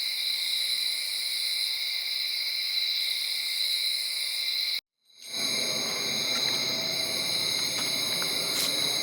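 Steady chorus of crickets and other night insects, a constant high trilling. About five seconds in it cuts out completely for a moment, then comes back with some added low rustling noise.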